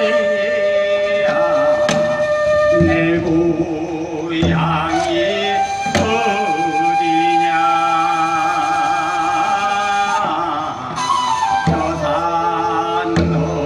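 Traditional Korean folk singing by a male sorikkun, his voice wavering with vibrato, over long held notes on a transverse flute, with a few sharp strikes on a barrel drum.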